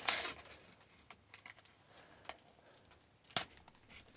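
A sticker pack wrapper torn open at the start, then light handling and flicking of the stickers, with a sharp click about three and a half seconds in.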